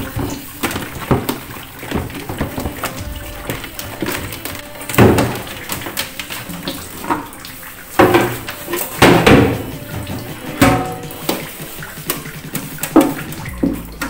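Water running and splashing at a tap during washing, with irregular knocks and clatter of items being handled, over background music.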